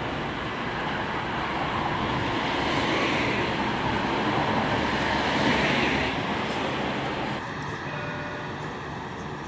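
Alstom Citadis tram standing at the platform right beside the microphone, giving a steady rushing noise that swells for a few seconds and then eases off. Faint steady whine tones come in near the end.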